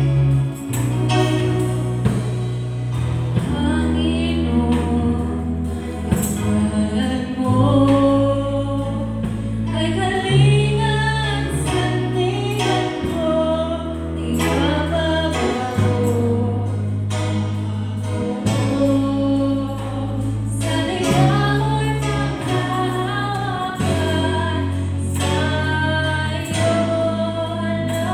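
Tagalog worship song sung by a small group of male and female singers over electric guitar, with sustained low bass notes changing every couple of seconds.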